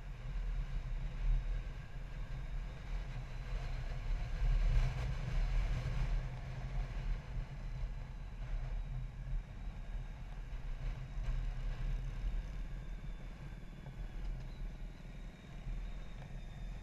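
A motorcycle riding at road speed: a steady low rumble of its engine mixed with wind buffeting the bike-mounted microphone, swelling a little around a third of the way in.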